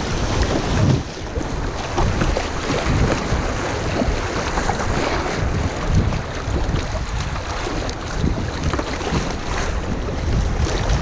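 River rapids rushing and splashing against a kayak's hull as it runs through choppy waves, with wind buffeting the microphone in an uneven low rumble.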